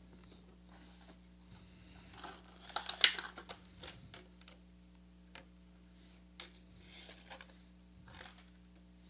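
Light plastic-and-metal clicks and rattles of small parts being handled: a clear plastic screw organizer tray and loose screws. They come in a quick flurry about three seconds in, then as scattered single clicks.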